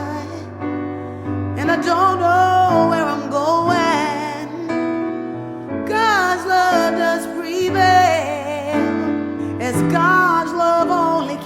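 Background song: a woman singing long, wavering phrases with vibrato over sustained piano chords, in a gospel style.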